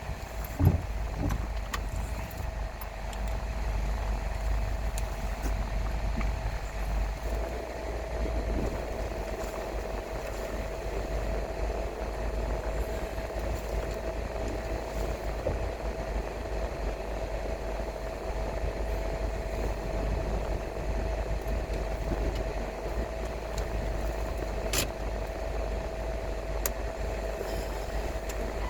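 Car driving along a road: a steady low engine and road rumble with a faint, constant thin whine above it, and a single sharp click near the end.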